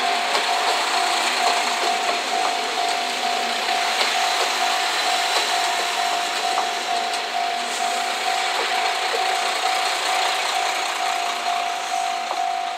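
JR Shikoku KiHa 185 series diesel railcars passing close by: a steady rush of wheels on rail with the diesel engines running, easing off slightly near the end as the last car goes by. A steady high tone runs under it throughout.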